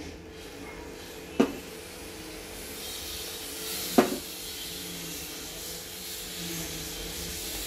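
Moong dal halwa cooking in ghee in a pan on a lit gas burner: a soft, steady sizzling hiss that grows stronger about two and a half seconds in. It is broken by two sharp knocks, one about a second and a half in and one about four seconds in.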